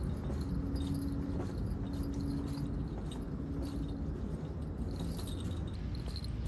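Outdoor wind rumbling on the microphone, steady throughout. A steady low hum sounds three times in a row, stopping about four seconds in.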